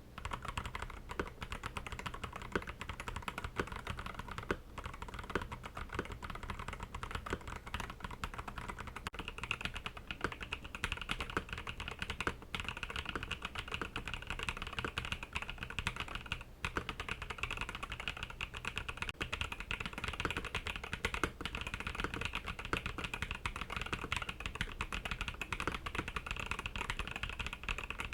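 Continuous fast typing on an Akko 5075B Plus mechanical keyboard: a dense, unbroken stream of key clacks.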